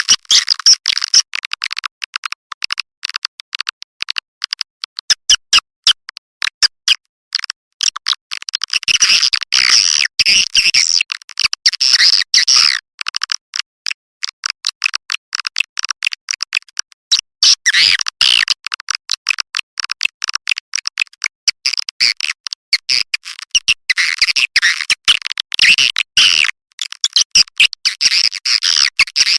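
Recorded edible-nest (white-nest) swiftlet calls played as a swiftlet-house lure track: a rapid, continuous stream of high clicking chirps, thickening several times into dense twittering. Everything sits high, with nothing low in the sound.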